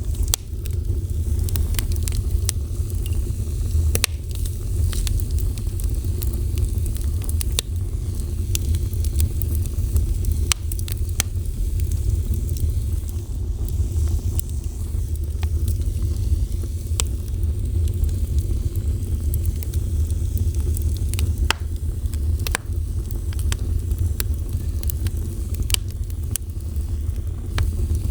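A fire burning steadily, with sharp crackles and pops at irregular intervals over a deep, constant rumble of flame.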